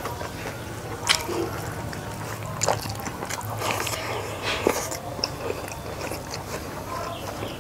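Close-miked eating sounds: a man chewing a mouthful of rice with scattered sharp wet clicks, and fingers gathering rice off a banana leaf.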